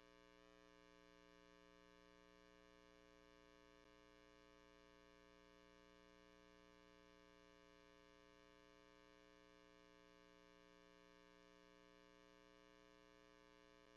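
Near silence: only a faint, steady electrical hum made of many fixed tones, with no sound from the puppies.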